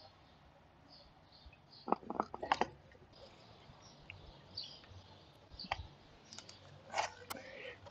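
Plastic clicks and knocks of bottles and a clip-on chain-cleaning unit being handled and fitted: a quick run of about five clicks around two seconds in, a single click later, and a sharper pair near the end. Faint bird chirps in the background.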